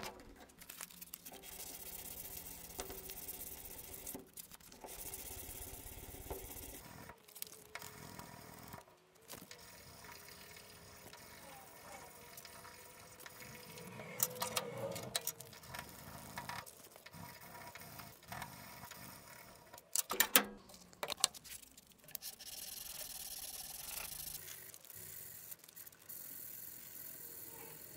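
Sandpaper rubbing by hand along a wengé and teak knife handle: a faint, hissing back-and-forth scratch in spells, with a few abrupt breaks.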